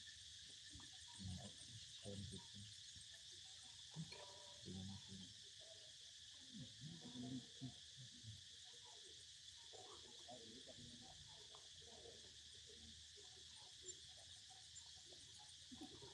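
Steady high-pitched insect chorus, faint and unbroken, with scattered soft rustles and small knocks at a low level over it.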